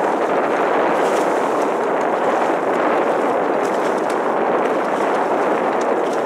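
Steady rushing noise from a boat under way on open water: wind on the microphone mixed with motor and water noise.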